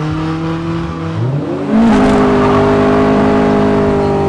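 Car engine revving hard: its pitch climbs a little before halfway, then it is held loud and steady at high revs, as a car peels out in a cloud of tyre smoke.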